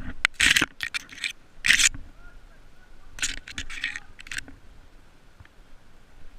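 Leaves and twigs of a bush rustling and scraping close to the microphone in several short bursts in the first half, then quieter.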